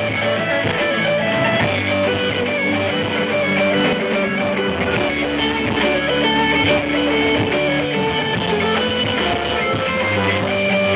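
Live rock band playing: an electric guitar runs through a melodic line of stepping notes over bass and the rest of the band.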